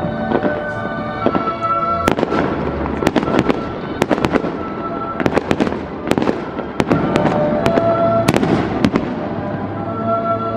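Fireworks going off: a rapid, irregular series of sharp bangs and cracks over music playing with sustained notes.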